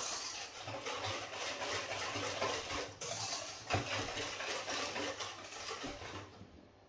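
Wire balloon whisk beating egg yolk mixture in a stainless steel bowl: a fast, continuous run of scraping, clicking strokes against the metal, fading out about six seconds in.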